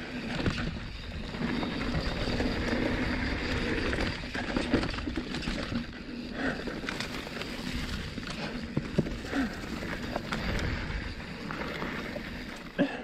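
Canyon Torque full-suspension mountain bike rolling along a dirt forest trail: steady tyre and riding noise with scattered short knocks and rattles from the bike over the rough ground.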